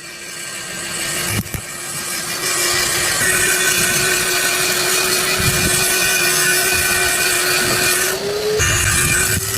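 A handheld power tool working on metal: a steady motor whine under a hissing scrape. Near the end the scrape stops for a moment and the motor pitch rises slightly, as the tool comes off the work, before it bites again.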